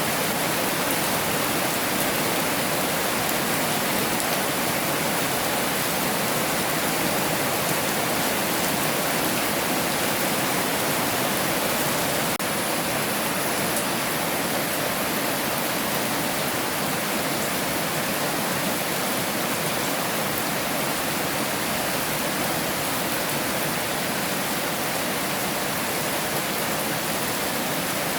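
Heavy rain falling steadily: a dense, even hiss without a break.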